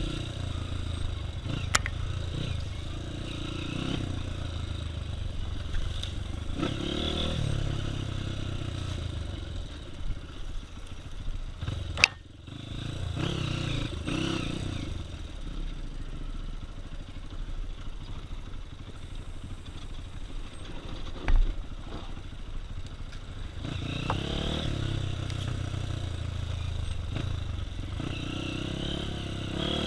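Honda CRF230 dirt bike, fitted with a 240 big-bore kit and a hot cam, its single-cylinder four-stroke engine riding along and rising and falling in revs, with clattering. There are sharp knocks about twelve and twenty-one seconds in.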